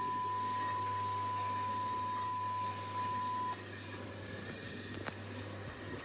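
Steady single-pitch line-up tone accompanying the colour bars on a VHS tape, played through a TV. It cuts off suddenly about three and a half seconds in, leaving tape hiss and a low mains hum, with a single click near the end.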